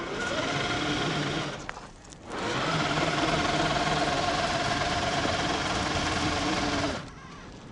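Traxxas TRX-4 Bronco RC crawler's electric motor and gearbox whining at a steady pitch under throttle, with wheels spinning in loose sand. It comes in two runs, with a short let-off about two seconds in, and cuts off near the end.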